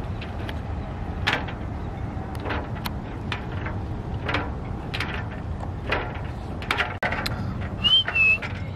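Aboard a boat at anchor: a steady low rumble with scattered irregular knocks and clicks, typical of small waves slapping the hull and gear knocking about. About a second before the end there is a brief high squeak.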